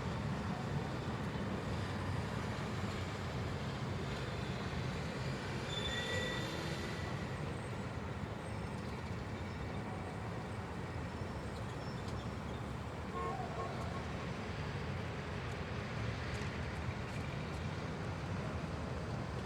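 A steady, low vehicle rumble, with a few faint short high tones about six seconds in and again around thirteen seconds.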